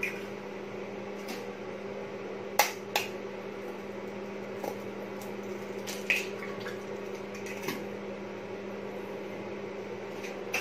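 Eggs being tapped and cracked against the rim of a bowl: a few sharp clicks, two close together a little over two and a half seconds in and another about six seconds in. A steady electrical hum runs underneath.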